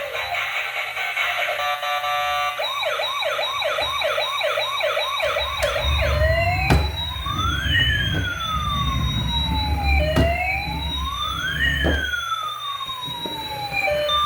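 Electronic toy vehicle siren sounding: a brief steady tone, then a fast warbling yelp for about three seconds, then a slower wail with two tones sweeping up and down against each other, with a couple of sharp clicks.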